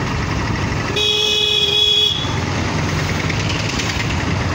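A vehicle horn sounds once, held for about a second, over the steady rumble of wind and engine from a moving scooter.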